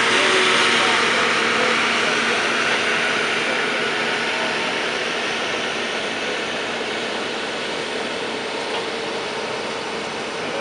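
Diesel engine of a rail-mounted grapple excavator running as the machine rolls past along the track, its engine hum and wheel-on-rail noise fading as it moves away.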